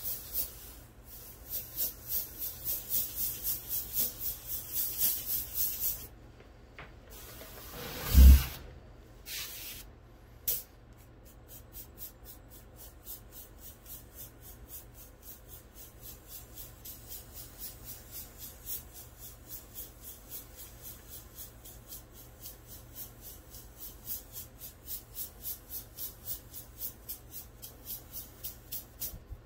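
Airbrush spitting paint in rapid, rhythmic hissing pulses: the air hose is pinched so paint builds up in the gun, then the air is let off so it spatters out in droplets for a speckled stone effect. One loud thud comes about eight seconds in.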